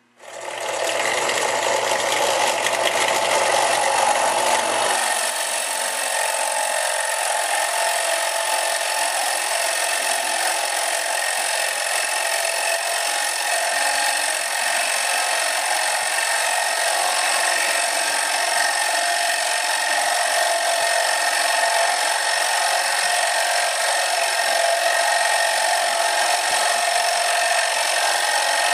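Drill press starting up and running steadily as a 1 1/8-inch spade bit bores through a wooden board.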